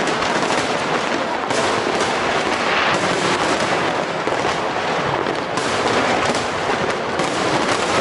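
A fireworks display: many aerial shells bursting at once, in a dense, unbroken crackle of rapid pops and bangs.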